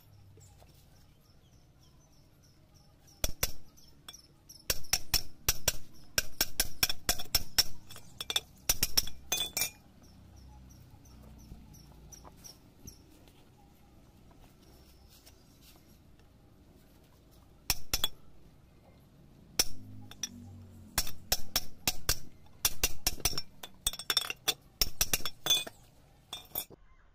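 Quick, sharp metallic clinks in rapid runs: a steel pipe is being tapped to drive an oil seal onto the shaft of a cast-iron worm gearbox. The taps come in two long runs with a pause between them.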